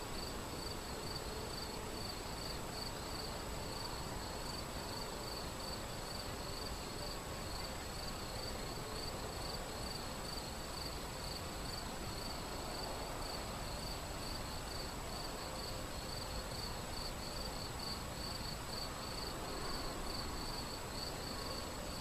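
Shallow river flowing over riffles, a steady rushing hiss, with a cricket chirping in a fast, even rhythm over it.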